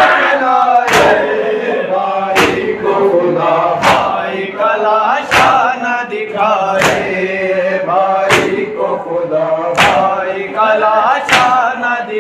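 A crowd of men chanting a noha together, with loud unison matam strikes, hands beating on chests, about every second and a half.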